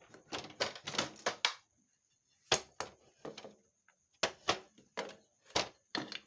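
Irregular metallic clicks and clacks of hand tools and engine parts being handled while a motorcycle engine is taken apart. There are about fifteen sharp knocks, in clusters, with a short pause around two seconds in.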